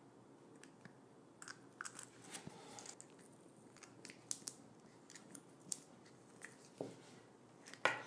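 Faint, scattered clicks and light rustling as a clear plastic plug housing is slid over a thick braided power cable and its insulated wires and handled.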